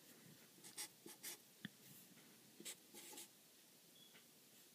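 Faint scratching strokes of a black felt-tip marker on grid paper, writing two numbers, with a light tap about one and a half seconds in.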